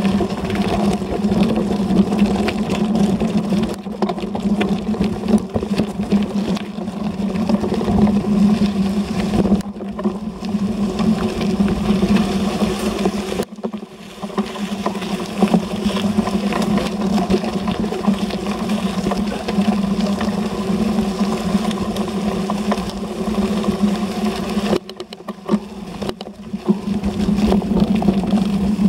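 Gravel bike rolling over a gravel and dirt forest track, picked up by a bike-mounted camera: a steady rumble and rattle of tyres and frame on loose stones under a constant low hum, dipping briefly twice.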